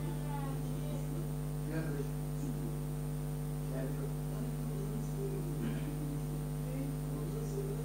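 Steady electrical mains hum, an even low buzz throughout, with faint muffled sounds beneath it.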